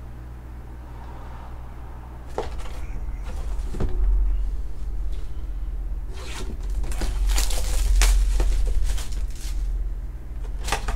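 Plastic shrink wrap being torn and stripped off a cardboard trading-card hobby box. A couple of sharp clicks come about two seconds in, then a stretch of dense crinkling and crackling in the second half, and a sharp click near the end.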